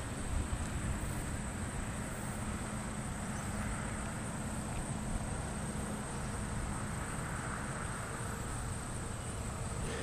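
Steady outdoor background noise with a thin, continuous high-pitched tone and a faint low hum, and no distinct events.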